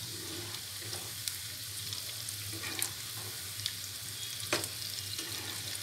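Urad dal pakodas sizzling steadily as they deep-fry in hot oil in a kadhai, with a few light clicks as a metal slotted spoon turns them in the pan.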